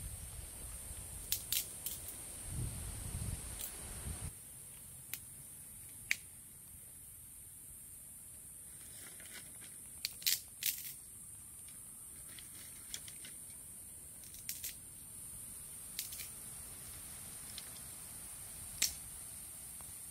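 Faint outdoor ambience: a steady high hiss with scattered sharp clicks and ticks, and a low rumble during the first four seconds only.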